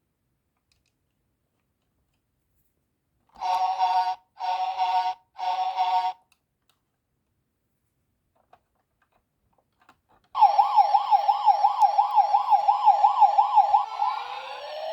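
Three short horn-like blasts, then an electronic siren warbling quickly up and down, about four times a second, which turns into a slower rising wail near the end.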